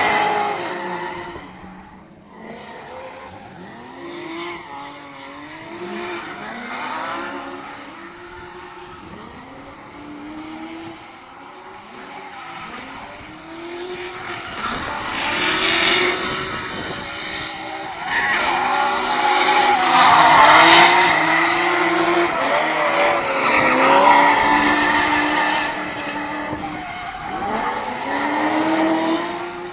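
Drift cars' engines revving up and down over and over as they slide, with tyres squealing. Fainter early on, loudest about twenty seconds in.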